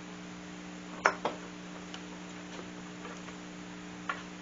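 Wooden clamping block and table parts being handled and set in place: a sharp knock about a second in, a softer one just after, then a few light taps, over a steady low hum.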